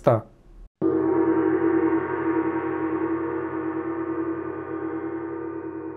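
A single gong stroke about a second in, its many tones ringing on and slowly dying away, with a slight pulsing beat in the low notes.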